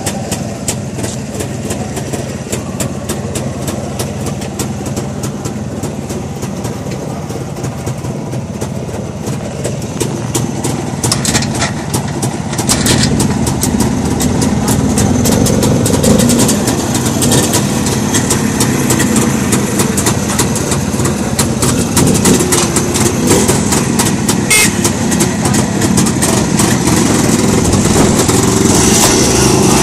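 Vintage motorcycle engines running at idle, with a rapid, uneven exhaust beat; the sound grows louder about twelve seconds in as nearby bikes are readied to ride off.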